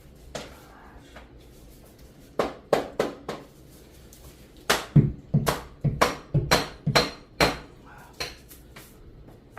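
Sharp knocks as click-together flooring planks are tapped tight to close a gap in the seam: a quick group of about four, then after a pause a run of about nine knocks, some three or four a second.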